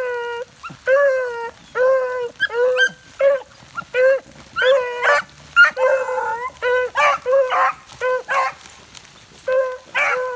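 Beagles baying in a steady string of short calls, one or two a second, with more than one voice overlapping in the middle: rabbit hounds giving tongue as they work a rabbit's scent.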